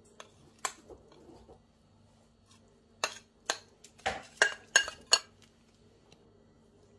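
Metal spoon clinking and scraping against a plate while scooping garlic, ginger and chilli paste off it: a couple of light clinks near the start, then a quick run of about six sharper clinks in the second half.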